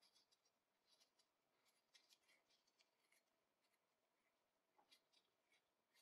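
Faint, irregular clicking and scraping of brass threads as a brass retaining ring is unscrewed by hand from an old binocular lens cell: small, crisp ticks in uneven clusters, with nitrile-gloved fingers rubbing on the metal.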